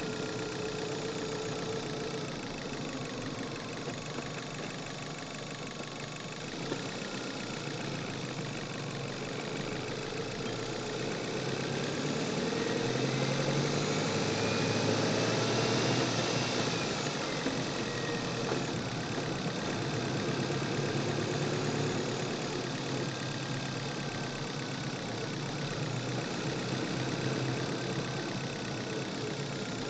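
Car engine running, heard from the engine bay, with the revs rising for a few seconds in the middle as it accelerates and then dropping back.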